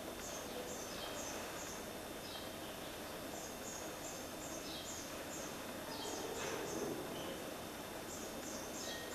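Short high bird-like chirps, each falling slightly in pitch, coming in quick runs of three to five at a time, over a steady hiss.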